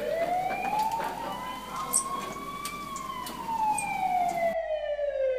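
Emergency vehicle siren sounding a slow wail. The pitch rises for about two and a half seconds, falls for about three, and starts climbing again near the end. The background hiss cuts out about four and a half seconds in while the siren carries on.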